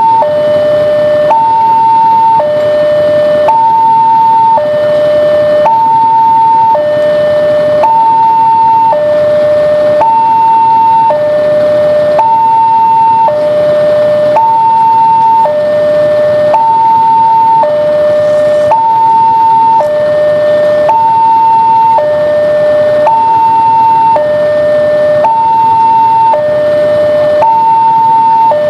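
Railway level-crossing warning alarm sounding continuously, with two electronic tones, high and low, alternating about once a second, which signals that a train is approaching.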